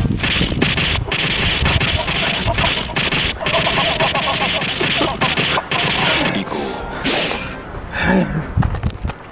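A comic beating: a rapid flurry of whack and punch sound effects, blow after blow over a dense hiss, with a heavier thud near the end.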